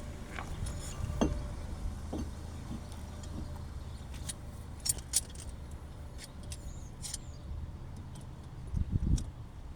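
Scattered light metallic clicks and clinks of work on a disc-brake caliper as its large piston is pressed back flush, with a heavier low thump near the end, over a steady low rumble.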